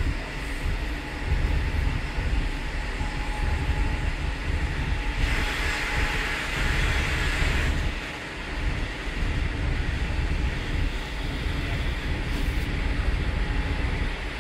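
Intercity passenger train running along the track, a steady rumble, with a louder rushing hiss for about two and a half seconds midway.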